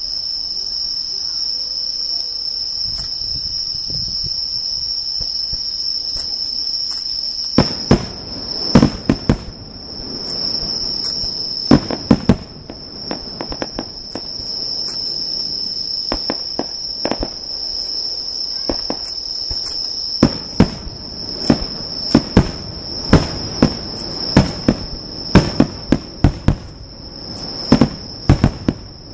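Fireworks exploding in a series of sharp bangs, in quick clusters from about seven seconds in, loudest near the end. Under them runs a steady high-pitched insect chirring.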